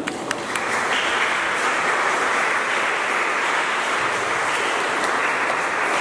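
Audience applauding, a steady patter of many hands clapping, starting with a few separate sharp claps.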